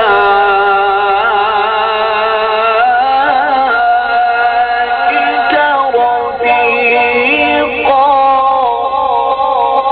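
A single voice chanting Quran recitation (tilawat) in long, held, wavering melodic notes, stepping up to a higher pitch about eight seconds in.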